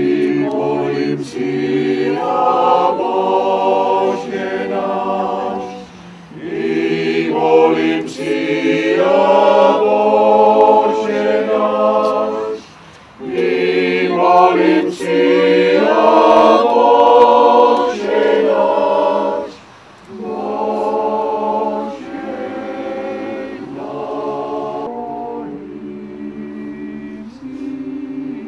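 Small mixed choir of men and women singing in long held phrases, with brief pauses between them, growing softer near the end.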